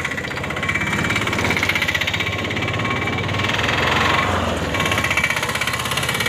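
A motor vehicle engine running with a fast, even throb. It swells about four seconds in, as of a vehicle passing close by.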